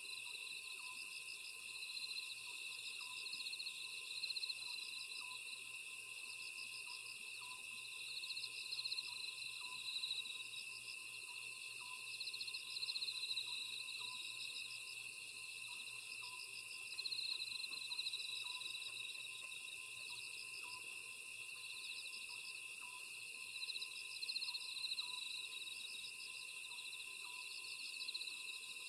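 Night chorus of crickets and other grass insects: a steady high trill with chirping bursts that come back every second or two. Under it, an Oriental scops owl gives short hooting notes over and over.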